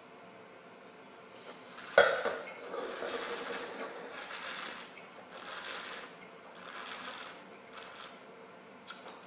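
A wine glass set down on a wooden table with a sharp knock, then a taster drawing air through a mouthful of red wine: four noisy slurps about a second apart, with fainter ones near the end.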